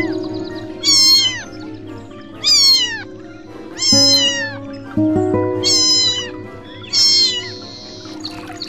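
Domestic cat meowing over background music: five loud, high meows about a second and a half apart, each falling in pitch.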